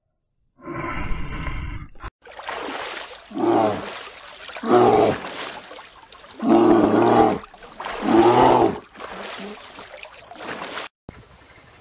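A bear calling: one shorter call about half a second in, then four loud, deep, drawn-out calls, each under a second. Water trickles and splashes between the calls.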